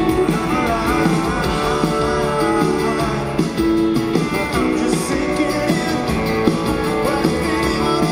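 Rock band playing live, with electric guitar, drums and a male lead singer.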